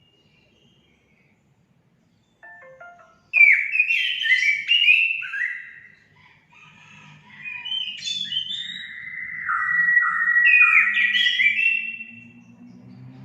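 Orange-headed thrush singing: after about two seconds of quiet, a few short notes, then a loud, varied run of whistled phrases with quick rising and falling slurs that lasts about eight seconds.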